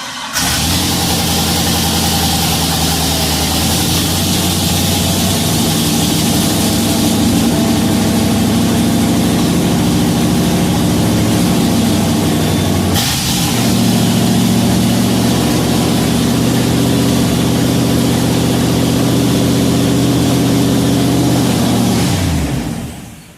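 LS V8 in a square-body GM truck catching on the first crank, then idling steadily without missing a beat. Its note dips and changes pitch briefly about 13 seconds in, and the engine is shut off near the end.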